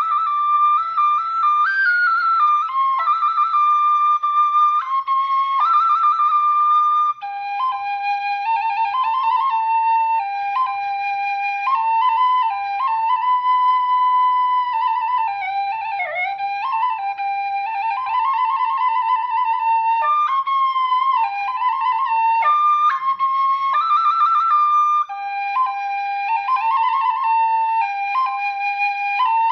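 Khloy, a Khmer bamboo duct flute, playing a slow solo melody of held notes with wavering vibrato and sliding ornaments.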